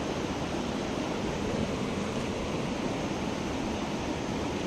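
Steady rush of a mountain creek's water tumbling over rocks, an even, unbroken noise.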